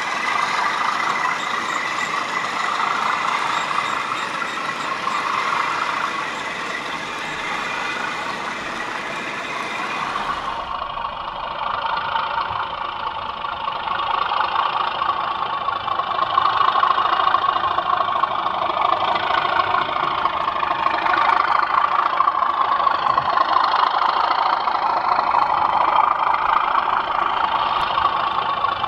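OO gauge model diesel locomotive running with a rake of mineral wagons: a sound decoder plays a steady diesel engine note over the rattle of wheels on the track. The sound changes abruptly about ten seconds in.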